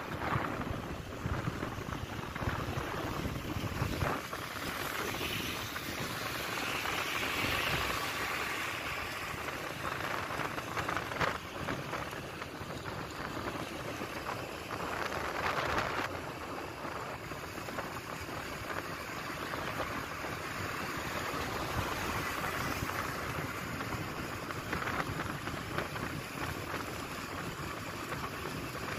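Steady wind rush and road noise from riding a motorbike at speed, the wind buffeting the microphone, with a few stronger gusts.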